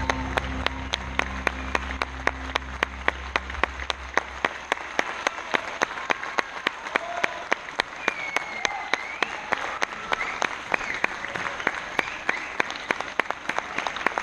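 Theatre audience clapping in unison, about three claps a second, with a few cheers and whistles. The show's final music chord dies away in the first few seconds.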